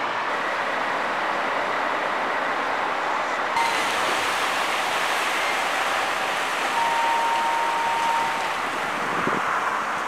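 Outdoor ambience in two parts. First, steady traffic noise from a wet street with a car passing. Then, after an abrupt cut about three and a half seconds in, steady wind and water noise at a debris-strewn harbour shore.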